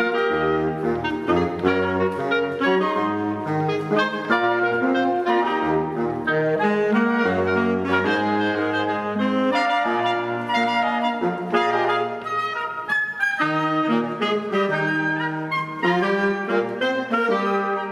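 A small wind ensemble of flute, clarinets and saxophones playing together in parts. Several held notes sound at once, changing every half second or so, over a low bass line that drops in and out.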